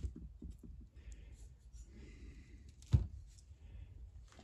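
Faint handling noises, then one sharp thump about three seconds in as an aluminium cylinder head is set down on the workbench.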